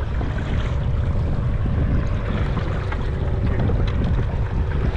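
Wind buffeting the microphone in a steady low rumble, with choppy water lapping around a kayak.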